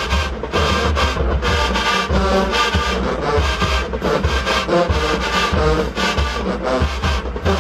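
Marching band brass and drums playing loudly, with full horn chords over a steady drum beat.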